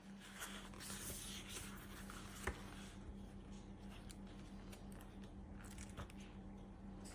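Faint room tone with a low steady electrical hum and a few isolated light clicks.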